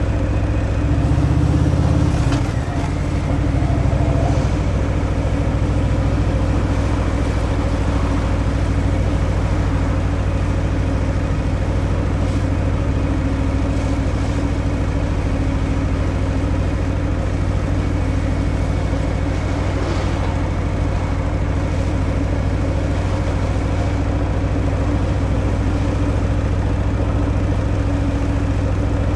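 Harley-Davidson Fat Boy's Milwaukee-Eight 114 V-twin running through its stock exhaust, with a brief rise in engine sound in the first couple of seconds and a short dip, then a steady, even note at constant revs.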